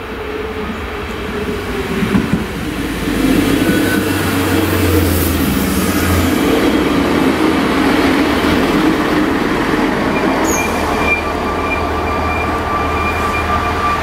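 Red DB Regio diesel railcar approaching and passing over the level crossing, its engine running and wheels rolling, loudest through the middle as it goes by. A thin high steady whine joins in during the last few seconds.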